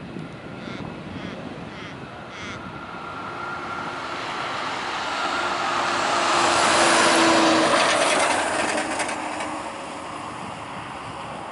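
Airbus A380 jet engines on the landing roll-out, a loud rushing roar with a low hum in it. It swells to a peak about seven seconds in, then eases off as the airliner rolls past.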